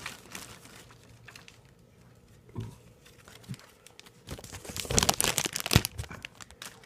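Packaging crinkling and tearing as a new circuit board is taken out of it by hand, sparse at first and busiest about four to six seconds in.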